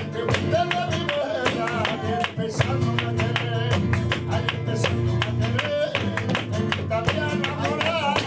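Live flamenco music for sevillanas: a flamenco guitar strummed in a busy rhythm with a male voice singing over it, and many sharp percussive strikes.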